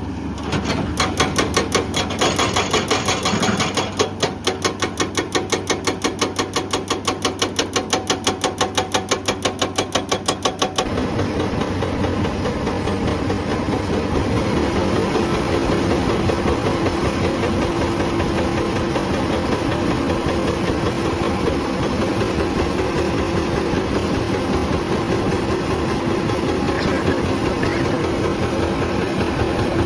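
Hydraulic breaker on a Hyundai excavator hammering rock in a rapid, even rhythm of several blows a second. The blows stop about eleven seconds in, leaving the excavator's engine running steadily.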